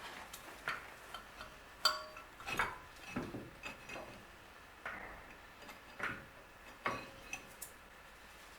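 Metal brake caliper parts and hand tools clinking and knocking as the caliper is taken apart: a scattered series of light knocks, with one short metallic ring about two seconds in.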